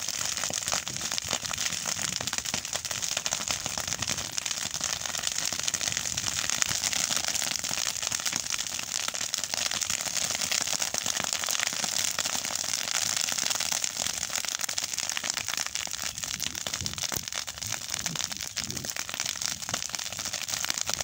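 A clump of green grass burning, with a dense, steady crackling and popping of flames.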